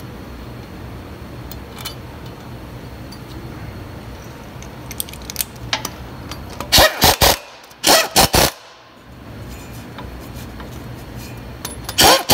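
Impact wrench run in short bursts, rattling the front drive shaft's strap bolts in tight: three bursts, the first about halfway in, the last at the very end. A few light metal clicks come just before, over a steady low hum.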